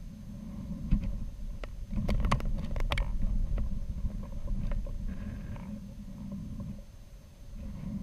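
Low, uneven rumble of air buffeting the microphone of a camera riding on a high-altitude balloon payload, with a cluster of sharp clicks and knocks from the payload about two to three seconds in.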